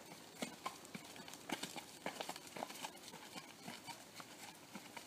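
Hooves of a walking horse fitted with EasyBoot Glove Back Country hoof boots, clip-clopping on a leaf-strewn dirt track as a string of sharp, irregular knocks.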